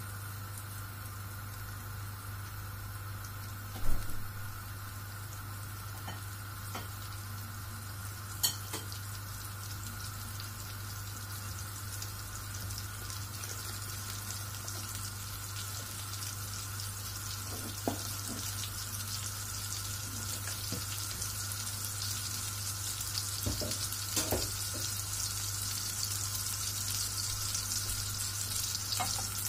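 Butter melting in a frying pan over a gas burner, sizzling with a fine crackle that grows louder and denser as the butter starts to foam. A steady low hum runs underneath, with a few light knocks, the loudest about four seconds in.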